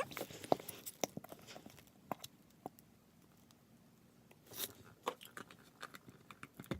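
Faint scattered clicks, taps and brief rustles of small objects being handled, with a short rustle about four and a half seconds in.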